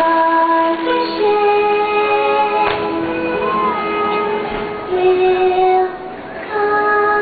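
Orchestral music with singing from a fireworks show soundtrack played over loudspeakers, with one firework bang a little under three seconds in.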